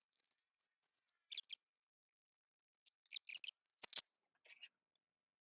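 Hard plastic scraping and clicking in short separate bursts, five or so in a few seconds, as a BMW E46 air box housing is worked back into place.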